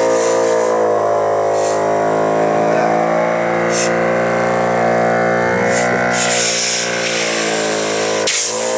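Belauto twin-cylinder 12-volt car tyre compressor running steadily with a dense motor hum, pumping against a closed outlet as the pressure builds to about 10 atmospheres. Short hisses come and go, and there is a brief dip in the sound near the end.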